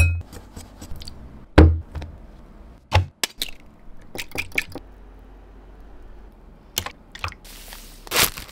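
Close-up food-prep sounds made of separate sharp taps, clicks and knocks: a metal spoon against a glass mixing bowl of flour, then a quick cluster of clicks as eggshells crack open over a glass bowl. Near the end comes a short crinkle from a plastic bread bag.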